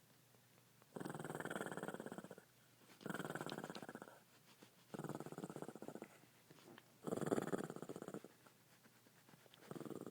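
Shih Tzu snoring in its sleep: four snores about two seconds apart, with a fifth starting near the end.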